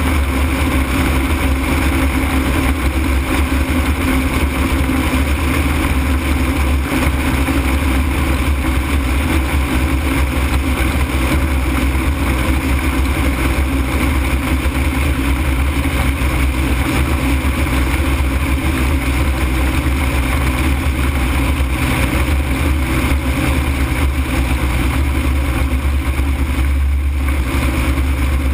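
Steady in-flight noise of an open-frame ultralight aircraft: a loud, even rush with a deep rumble underneath, unchanging throughout.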